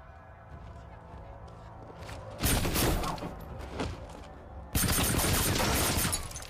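Movie gunfight sound effects: a low hum of quiet score, then a sudden burst of gunfire about two and a half seconds in. A longer, louder barrage of shots breaks out abruptly about a second later and lasts well over a second.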